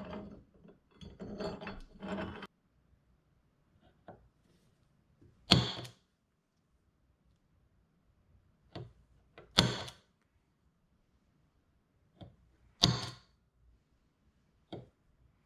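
A steel plate is handled and set into a drill press vise: a couple of seconds of shuffling, then about half a dozen sharp metal knocks, spaced one to three seconds apart, the loudest about five and a half and nine and a half seconds in.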